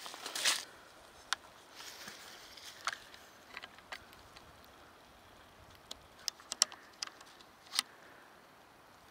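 Brief rustling at the start, then scattered light ticks and taps over a quiet background, about eight of them, irregularly spaced.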